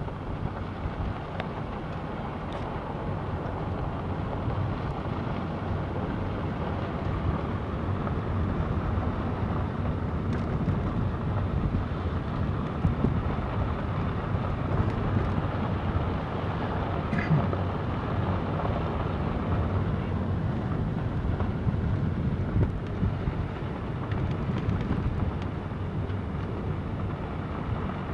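Steady road noise of a vehicle driving on a gravel road, heard from inside the cabin: tyres on gravel and engine, with a few faint ticks.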